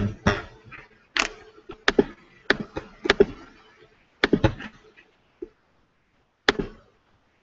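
A dozen or so sharp, irregular clicks and taps from hands working a computer close to the microphone, as while fighting a screen share that will not start. After a gap of about a second there is one last click near the end.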